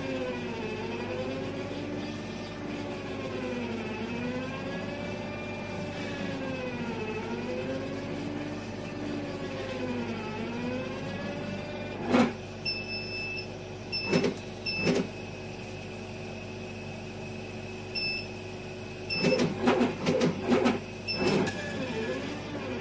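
Laser cutter's gantry stepper motors whining as the head traces curves, the pitch rising and falling in smooth arcs every second or two, over a steady low hum. About twelve seconds in the arcs stop and give way to sharp knocks from quick head moves, with a high tone that comes and goes, and a cluster of knocks near the end.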